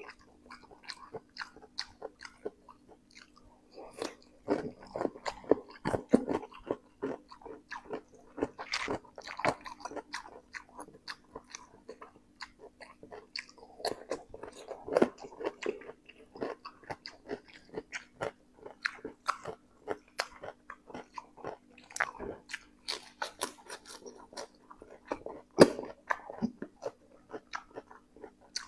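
Close-miked eating sounds: a person chewing and biting raw cucumber and spicy instant noodles, in quick wet crunches and mouth clicks that come in irregular busy spells. A faint steady hum sits underneath.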